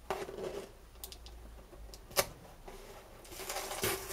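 Hands rummaging in a cardboard model-kit box, small parts and packing rustling and clicking against the cardboard. One sharp click about two seconds in, then a longer scratchy rustle near the end.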